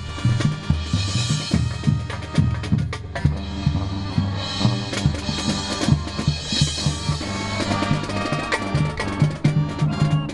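Marching band playing: brass over drums, with deep concert bass drum strokes and several washes of cymbal from the pit percussion.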